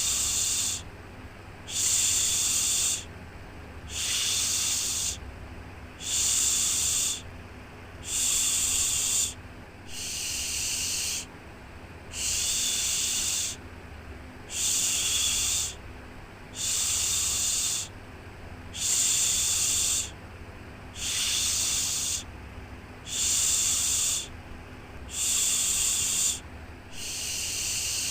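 A shushing 'shhh' sound repeated steadily, each shush about a second long and coming roughly every two seconds, over a softer continuous hiss of white noise.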